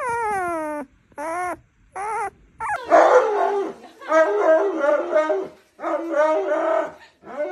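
A young puppy whimpers three times in short whines that fall in pitch. Then a large husky-type dog vocalizes in a run of long, wavering howl-like calls.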